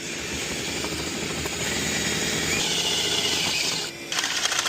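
A power tool running steadily, cutting out briefly about four seconds in and then starting again.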